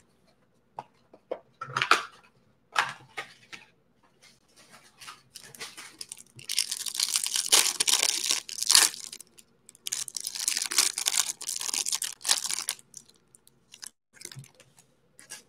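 Plastic cellophane wrapper being torn and crinkled off a stack of trading cards: a few light clicks, then two long stretches of crackling.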